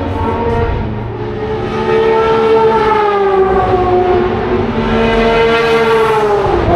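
Historic racing car engines at speed, their pitch sliding up and down as they pass, with a new engine note taking over about five seconds in.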